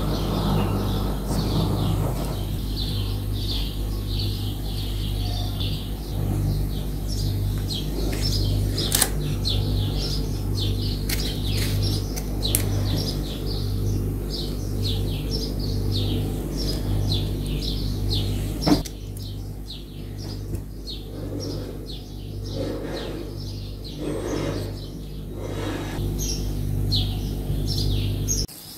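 Birds chirping over and over above a steady low hum that pulses about once a second and cuts off just before the end. A few light clicks and one sharp knock about two thirds through.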